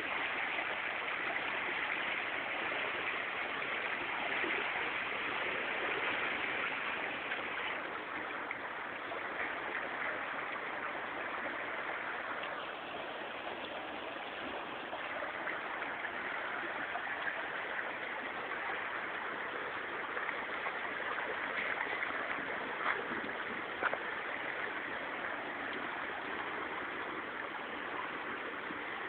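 Steady rushing, gurgling water flowing around an oil spill skimmer as it collects oil off the surface, with two small ticks about two-thirds of the way through.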